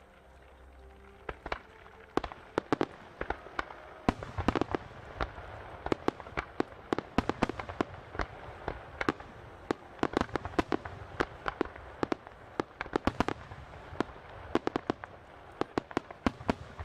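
Starmine fireworks barrage: aerial shells launching and bursting in rapid succession, a few sharp bangs at first, then several a second from about four seconds in.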